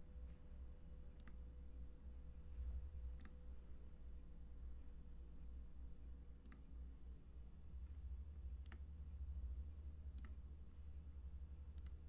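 Computer mouse clicking now and then, about six single clicks spread out, with a quick double click near the end, over a low steady hum.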